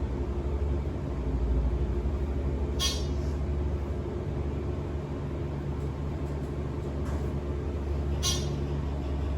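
Old Dover elevator running, a steady low mechanical hum, with two short high-pitched blips about three seconds and eight seconds in.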